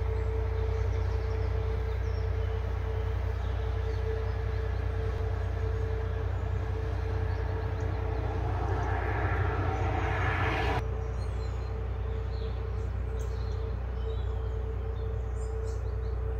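Outdoor ambience with a steady low rumble and a steady hum. A rushing noise builds up about eight seconds in and cuts off abruptly near the eleventh second, after which a few faint bird chirps come through.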